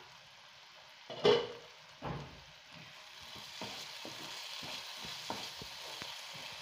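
A short clatter about a second in, then thick tomato-onion masala sizzling in oil in a nonstick pan as a wooden spatula stirs and scrapes through it, the sizzle growing from about three seconds in. The masala is cooked down, with the oil separating out on top.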